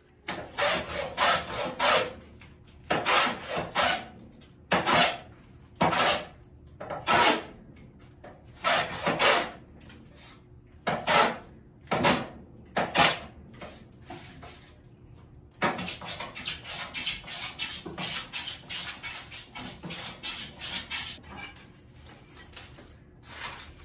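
Hand plane taking shavings off a wooden board in repeated push strokes: about ten separate strokes roughly a second apart, then, a few seconds later, a run of quicker, shorter, quieter strokes.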